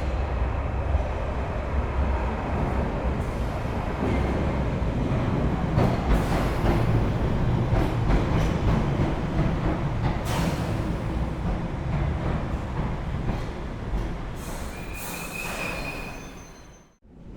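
London Underground train running on the rails: a steady heavy rumble with scattered clicks and clacks from the wheels and track. A brief high wheel squeal comes near the end, then the sound fades out.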